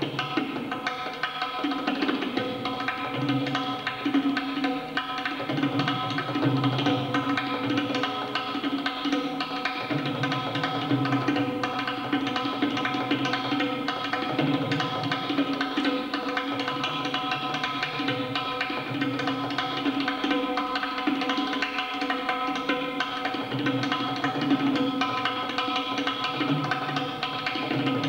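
Tabla solo in the nine-beat taal Nashruk: fast strokes on the tuned dayan with deep bass strokes on the bayan that come and go. A harmonium plays a steady lehra underneath.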